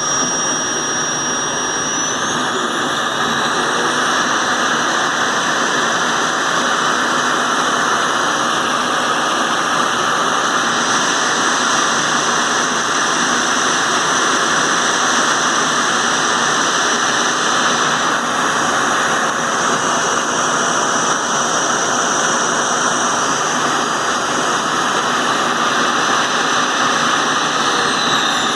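Vacuum cleaner motor running steadily with a loud rushing hiss and a thin high whine; the whine rises in pitch about two seconds in and falls again near the end.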